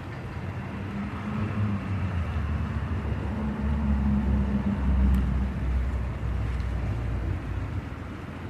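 A car going by on the road: a low engine hum that grows louder toward the middle and then fades.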